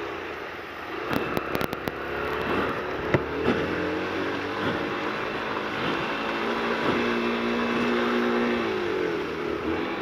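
Yamaha YBR Factor 125's single-cylinder four-stroke engine pulling away, its revs rising for several seconds and then dropping near the end, over wet road and wind noise. The engine is misfiring, which the rider puts down to water in the spark plug cable. A few sharp clicks come in the first two seconds.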